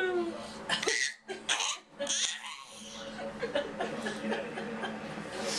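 A young child laughing in bursts of falling giggles at someone's hiccups. The laughter is loudest at the start and fainter after about two seconds, with two short sharp sounds a little over a second in.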